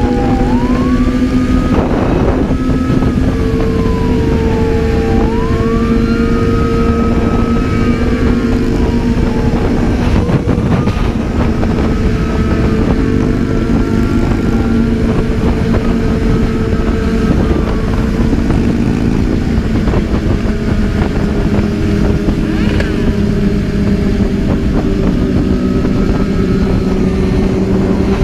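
Motorcycle engine running at a steady speed under rushing wind noise, while a police siren wails, rising and falling every few seconds.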